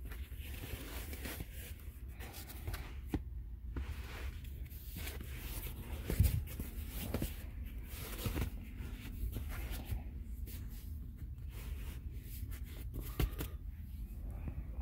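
Handling noise: irregular rustling and rubbing close to the microphone as it is moved over the mats, with a few soft knocks, the loudest about six seconds in and again near the end, over a steady low rumble.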